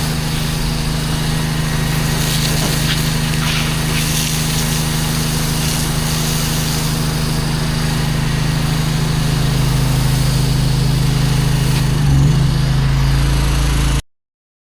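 Pressure washer engine running steadily, then cutting off suddenly near the end.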